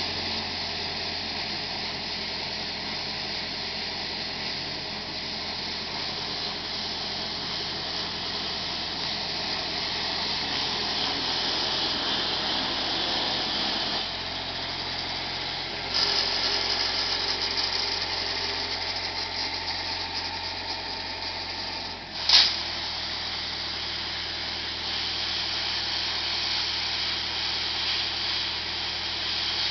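The Easyclean 600T poultry-equipment washer's Kubota engine runs steadily, driving its high-pressure pump. About halfway in, the hiss of the pressure lance spraying water joins it. About two-thirds in comes one brief, loud burst.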